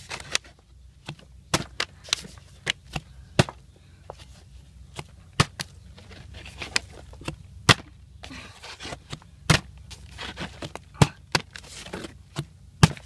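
Plastic water bottle being flipped, knocking and clattering onto concrete again and again: a run of sharp, irregular knocks.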